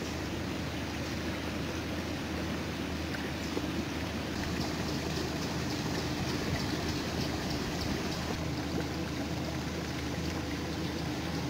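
Spring water trickling and splashing down mossy rocks into a stream, with water dripping steadily from an overhanging bank.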